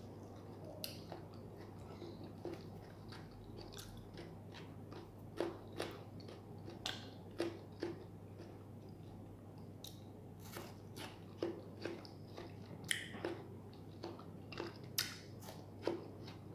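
Close-up mouth sounds of a person eating raw tomato slices and a sandwich: irregular short wet clicks and smacks of biting and chewing, growing more frequent about a third of the way in, over a faint steady low hum.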